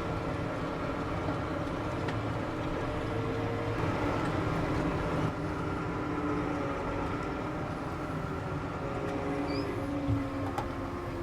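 New Holland T7.315 tractor running steadily while driving across a field, heard from inside the cab as an even drone with a few faint steady tones.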